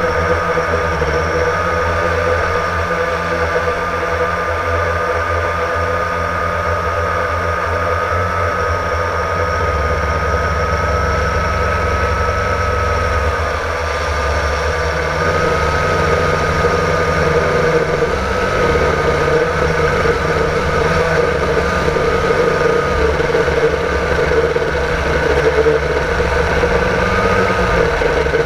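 Blade 350 QX quadcopter's four brushless motors and propellers whining steadily in flight, heard from the GoPro mounted on the drone. The pitch wavers slightly as the motor speed changes.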